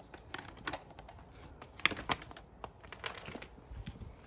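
Scattered light clicks and knocks of bolts and plastic side-panel parts being handled on a dirt bike, with two sharper clicks about two seconds in.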